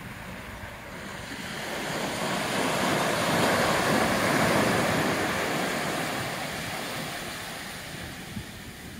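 Small ocean waves breaking on a sandy beach, the surf wash swelling to its loudest about four seconds in and then fading away. A low wind rumble on the microphone runs underneath.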